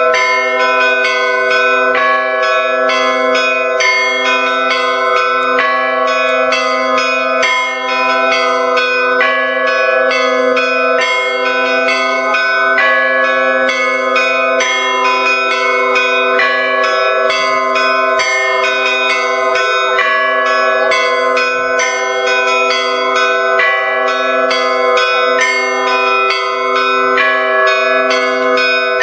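Russian Orthodox church bells ringing together: a low bell sounds steadily beneath quick, repeated strikes of smaller bells, their tones overlapping and ringing on.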